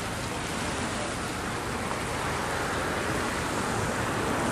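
Wind buffeting the microphone: a steady rushing noise that slowly gets louder.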